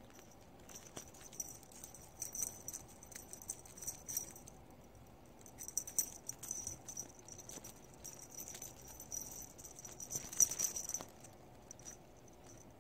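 Close, irregular rustling and crackling of kittens at play on a fabric sofa cover: many small scratchy ticks, getting louder in a burst near the end.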